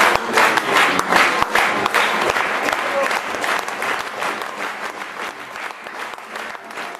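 Audience applauding: many hands clapping densely, gradually thinning and fading.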